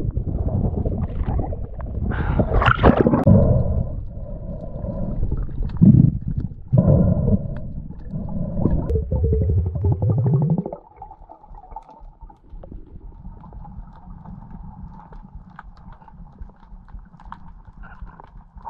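Loud water sloshing and gurgling right at a swimmer's camera at the sea surface, cutting off sharply about eleven seconds in to a much quieter underwater hush with a faint steady hum.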